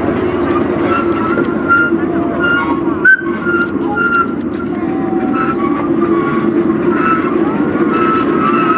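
Riding on a miniature park railway train behind a small live-steam locomotive: the cars' wheels run steadily along the track, with short high-pitched squeaks coming and going. A single sharp knock sounds about three seconds in.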